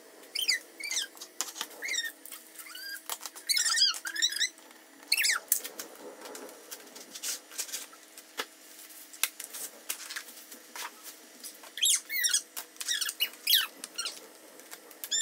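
Plastic panels and hinges of a collapsible storage box squeaking and clicking as they are swung open and snapped into place, in many short high squeaks with sharp clicks between them.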